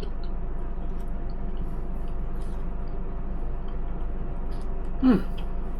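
Steady low background hum with a few faint clicks while a man chews food, and a short falling 'mm' from him about five seconds in.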